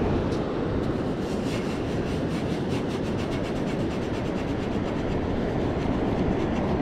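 Steady low rumble of wind on the microphone and surf, with faint rapid gritty scraping as a metal razor clam gun is twisted and pushed down into wet sand.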